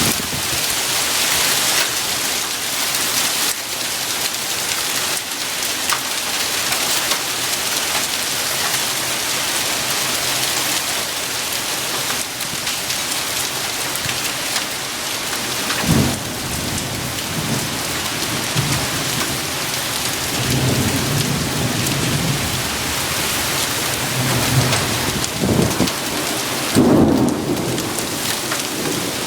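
Hail and heavy rain pelting down in a dense, steady hiss of many small hits. Thunder breaks in about halfway through and rumbles on and off, loudest near the end.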